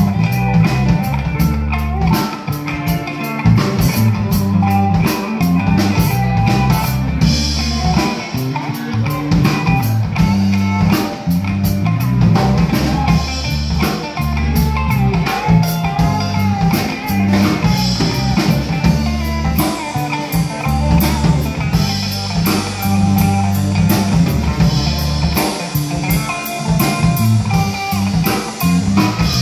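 Live rock band playing, with electric guitars over a drum kit keeping a steady beat with cymbal strokes; the cymbals grow brighter a few seconds in.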